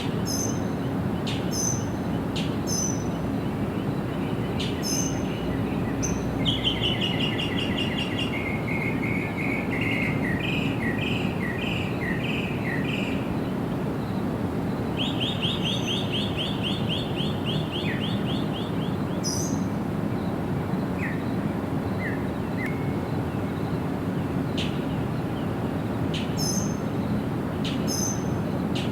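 Sparrows chirping: short, high chirps every second or two, with two longer runs of rapid trilled notes in the middle, over a steady low background rumble.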